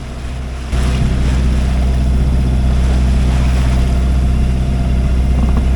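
Boat engine running steadily, a low drone that gets louder about a second in.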